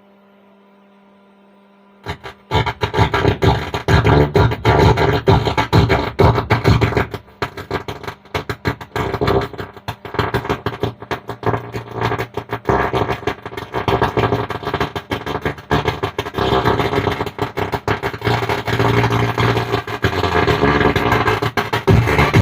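Music played loud through a Stranger PBT 800 mono transistor amplifier into its speaker, coming out distorted and unclear, with no words to be made out: the amplifier's sound fault. It starts about two seconds in, after a faint hum.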